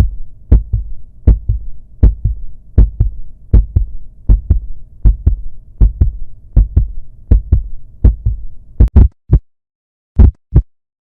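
Heartbeat sound effect: a double lub-dub thump repeating at about 80 beats a minute over a low hum. About nine seconds in, the hum cuts out, the beats break off, one last pair of thumps sounds, and then it goes silent.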